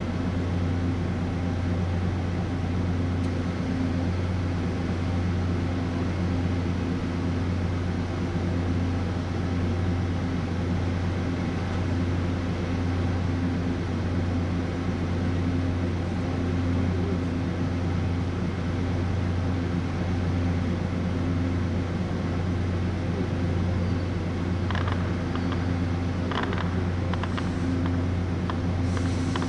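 Diesel train engine running at a steady idle, a constant low drone. Near the end a few faint short clicks and squeaks come in over it.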